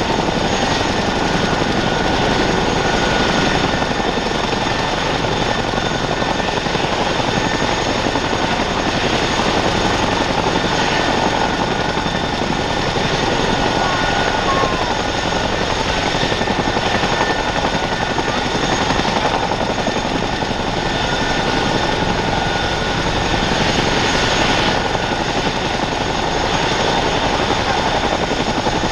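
Boeing CH-47F Chinook running on the ground, its twin turboshaft engines and both tandem rotors turning: a loud, steady rush of rotor and engine noise with a high, even turbine whine over it.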